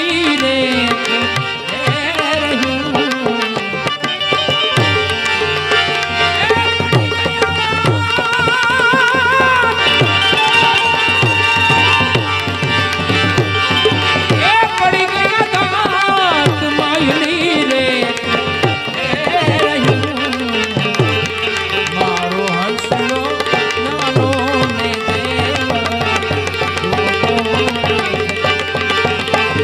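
Instrumental interlude of devotional folk music: tabla playing a steady rhythm under a wavering, ornamented melody line, amplified through a PA system.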